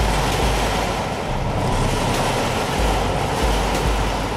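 Steady outdoor background noise: an even rushing hiss with low rumbles that come and go.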